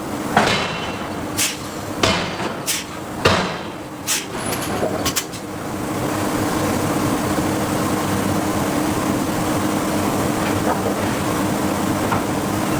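Hydraulic forging hammer striking steel: a run of sharp blows about a second apart, then from about six seconds in a steady machinery hum.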